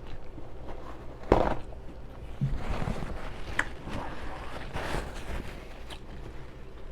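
A person chewing a burger with loud lip smacking. There is one sharp, loud smack a little over a second in, then a busier stretch of chewing and smacking through the middle.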